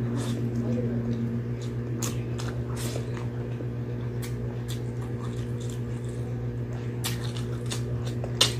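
Close-miked eating sounds: wet, squishy chewing, lip smacks and small mouth clicks of a person eating soft braised pork and rice by hand, with one sharper smack near the end. A steady low hum runs underneath.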